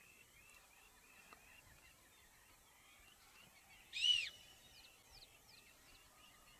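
Faint outdoor bird chorus of rapid, repeated short chirps, with one loud arching whistled call, rising then falling, about four seconds in.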